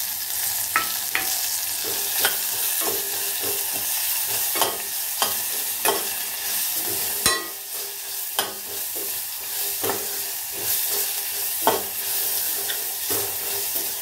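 Ground pepper, cumin and garlic paste sizzling in hot oil with shallots and curry leaves in a stainless steel pot. A steel spoon scrapes and knocks against the pot about once a second as it stirs.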